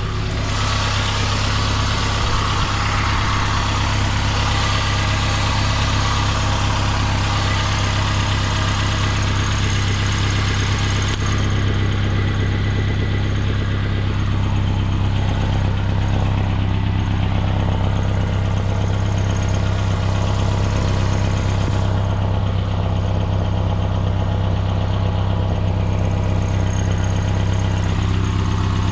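2016 Mitsubishi Outlander engine idling steadily, with the owner suspecting an exhaust leak.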